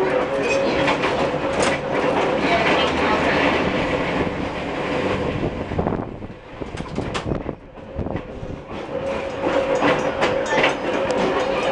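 New Orleans Public Service streetcar 832 running on its rails, heard from inside the car: steady running noise with clicks and rattles over a steady tone. About six seconds in, the noise drops away for a couple of seconds, then the tone and the running noise pick up again.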